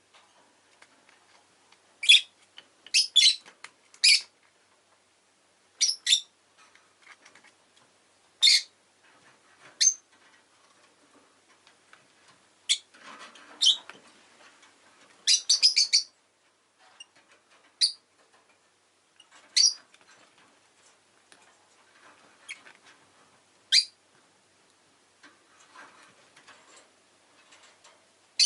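Rosy-faced lovebirds giving short, sharp, high-pitched chirps at irregular intervals, some in quick runs of two or three.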